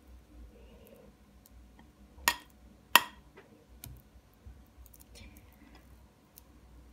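Two sharp clinks of glass on glass a little over two seconds in, less than a second apart, the second the louder: a small glass bowl of honey knocking against the rim of a ribbed glass mixing bowl. A few faint ticks and a brief light scrape of a silicone spatula on glass follow.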